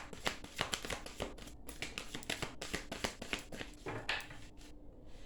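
Tarot cards being handled and shuffled: a quick, irregular run of light card clicks and flicks, thinning out about four seconds in.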